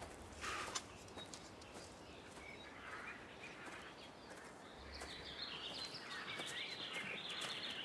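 Faint outdoor ambience with songbirds chirping and twittering, a little more active in the second half, and a short soft rustle just under a second in.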